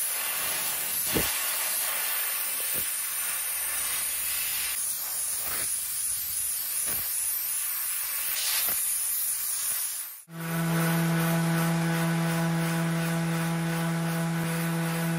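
Compressed-air spray gun hissing steadily for about ten seconds; the sound cuts out briefly, then a random orbital sander runs with a steady motor hum.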